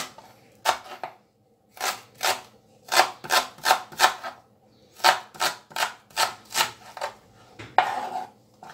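Kitchen knife slicing a leek on a plastic cutting board: crisp cuts about three a second in short runs with brief pauses. Near the end comes a short scrape as the slices are pushed together on the board.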